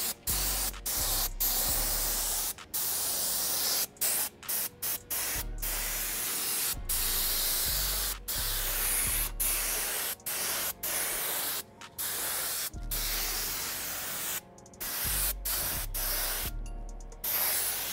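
Compressed-air detail spray gun (Central Pneumatic 4-ounce) spraying tire dressing: a loud hiss of air and mist, cut by many brief pauses as the trigger is let off and pulled again, with a couple of longer breaks near the end.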